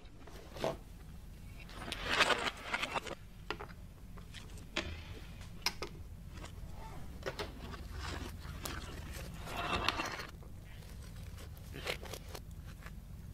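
Small hard objects being handled: scattered clicks and taps, with two longer scraping rustles about two seconds in and again near ten seconds, over a steady low hum.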